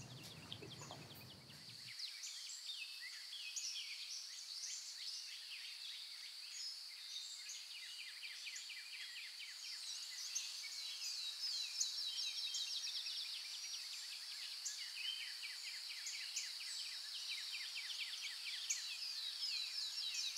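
Many birds chirping, in quick short calls, over a steady high-pitched insect buzz. A low outdoor rumble under it stops abruptly about two seconds in, leaving only the birds and insect.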